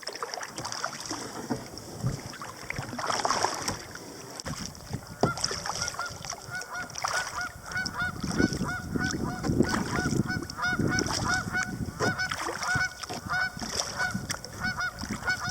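A flock of geese honking: many short, rapidly repeated calls that start about a third of the way in and keep on. Under them are the knocks and splashes of kayak paddle strokes.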